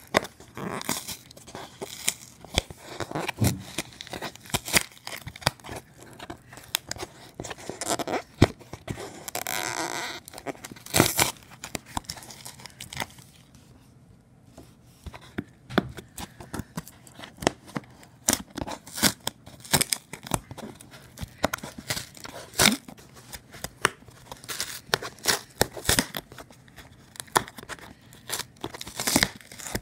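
A cardboard shipping box being torn open by hand: repeated rips of cardboard and packing tape, with crinkling and knocks, and one longer rip about ten seconds in.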